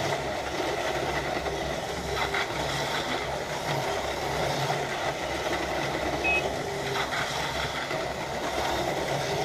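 Several Auto World Johnny Lightning Thunderjet 500 HO-scale slot cars running laps on the track, a steady whir of their small electric motors and wheels in the slots, with a few light clicks.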